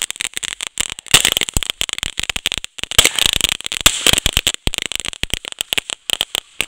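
Heavy rain striking the camera and its microphone: a dense, irregular patter of sharp clicks, with a few louder hits about a second in and about three seconds in.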